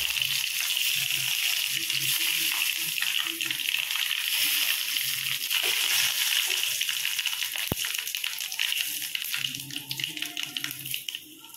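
Dried red chillies and fenugreek seeds sizzling in hot coconut oil in a metal kadai, a steady frying hiss that dies down over the last couple of seconds.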